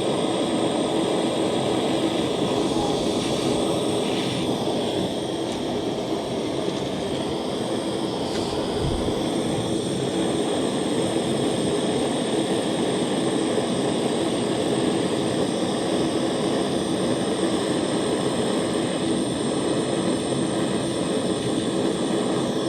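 Handheld gas soldering torch burning steadily, a continuous even rushing noise from the flame.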